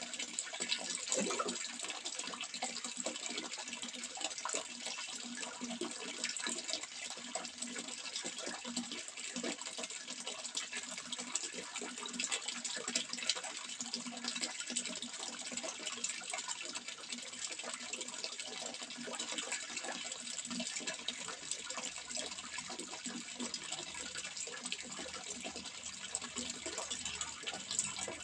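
Running water, continuous and steady, with a fine splashing texture and no pauses.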